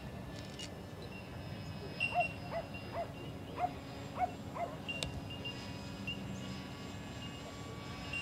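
A dog barking: a quick run of about seven short barks, beginning about two seconds in and ending a little before halfway.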